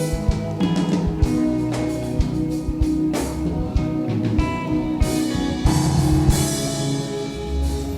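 Live band playing an instrumental outro without vocals: electric guitar and drum kit with bass, ending abruptly near the close.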